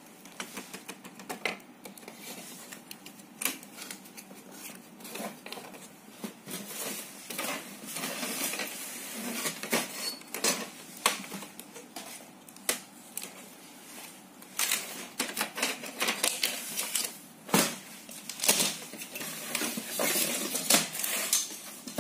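Irregular clicks, taps and light rattles of plastic and sheet-metal LED TV panel parts being handled during a teardown, around the T-con board and the panel's bottom frame strip. The clicking grows busier and louder in the second half.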